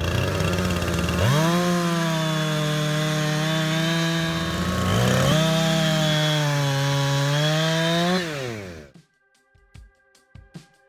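Chainsaw revving up hard twice and held at high revs, then winding down and fading out about eight seconds in. Quiet music with light percussive hits follows.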